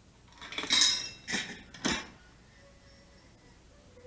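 A metal arcade token rattling and clinking down through a coin mechanism: a clatter about half a second in, then two shorter clinks. The coin drop does not start the game.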